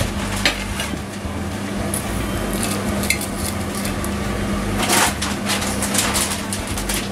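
Knife and fork scraping and clinking against a plate while cutting a fried fish fillet, in scattered short clicks and scrapes, over a steady low hum.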